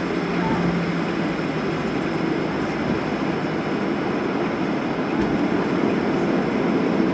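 Steady rumbling cabin noise of a Boeing 737 taxiing after landing: the engines at idle and the airframe rolling over the taxiway.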